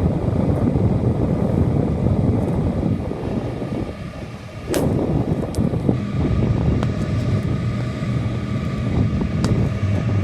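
Box fan running close to the microphone, its blown air buffeting the mic in a low rumble over a steady hum. The noise dips about four seconds in, then a single sharp click.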